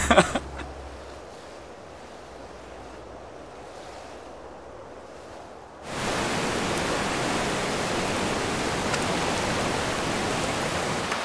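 Faint, steady hiss, then from about six seconds in the louder, steady rush of a fast glacier-fed river.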